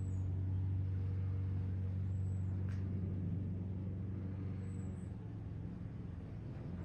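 Steady low hum of a running engine, easing off slightly about five seconds in.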